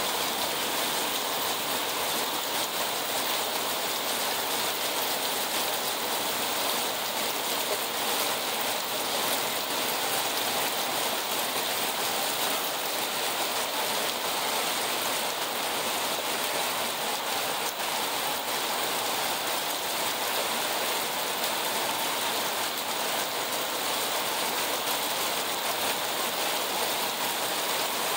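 Heavy rain pouring down steadily as an even hiss, with no thunder or sudden strikes.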